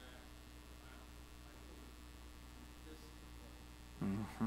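Steady low electrical mains hum. About four seconds in comes a brief, louder burst of a person's voice.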